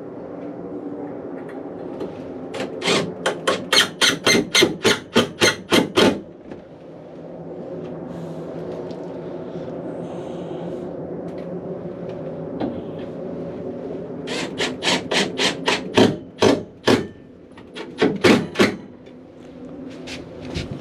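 Hammer blows in two quick runs of about a dozen strikes each, roughly three to four a second, over a steady background hum.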